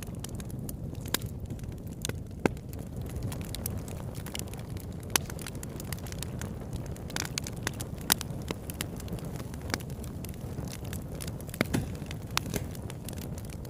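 Bonfire burning: a steady low rumble of flames with sharp, irregular crackles and pops from the burning wood, a few louder pops standing out.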